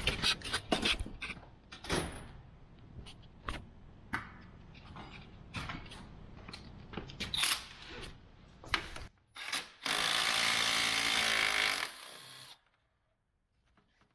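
Scattered clicks and knocks of plastic grille trim and its clips being worked, then about ten seconds in a cordless power tool runs steadily for about two and a half seconds, driving out a 10 mm bolt that holds the trim, and stops suddenly.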